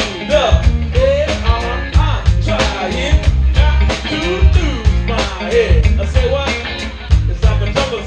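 Live band music with a man singing lead over electric bass, electric guitar and drums, in a steady, ska-like beat.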